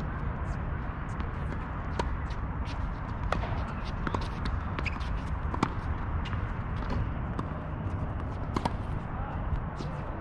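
Tennis singles rally: sharp, irregular knocks of racket strikes and ball bounces, over a steady low rumble.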